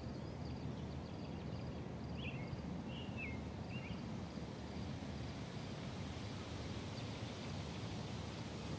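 Quiet outdoor ambience: a steady low rumble, with a few short high chirps between about two and four seconds in.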